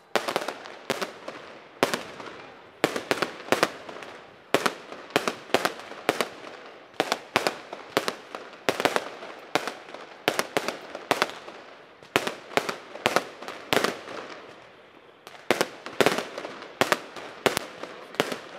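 Aerial fireworks bursting in a rapid, irregular series of sharp bangs, about two a second, each with an echoing tail. There is a brief lull about three-quarters of the way through before the bangs resume.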